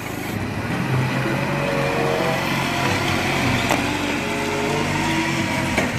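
Toyota 2.5-tonne LPG forklift's engine running steadily as the forklift drives, a steady hum with a faint whine over it.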